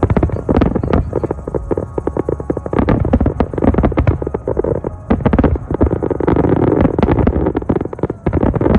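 Fireworks going off: a dense, rapid run of crackling pops and bangs, with a brief lull about eight seconds in.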